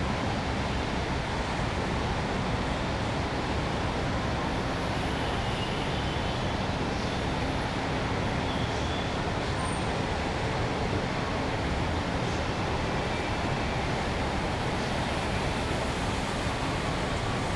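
Steady urban street ambience: a continuous, even wash of road traffic noise with no single event standing out.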